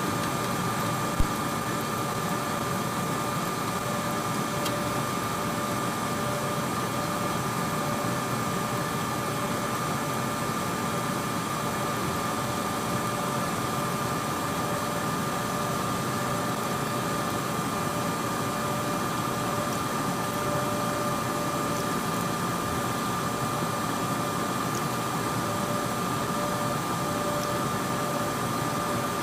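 Laboratory biosafety cabinet blower running: a steady rush of air with a steady high whine over it. A single sharp click about a second in.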